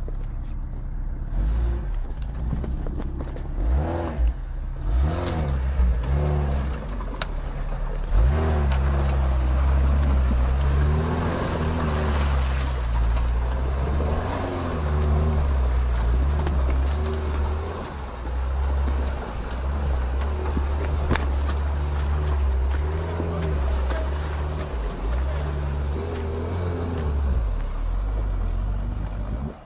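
Lifted Lada Niva's engine revving up and down over and over under load as it pushes through deep mud.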